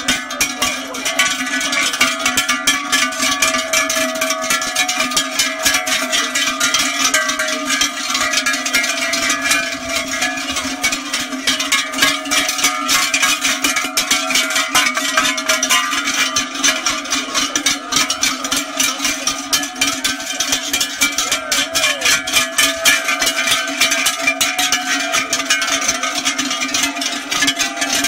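Many large cowbells worn by a herd of cattle clanging and ringing continuously, a dense jangle of overlapping strikes as the animals jostle and move.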